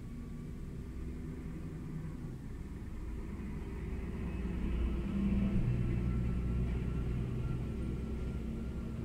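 Diesel engine of an articulated truck pulling slowly past, a low rumble that swells to its loudest a little past halfway and then eases off.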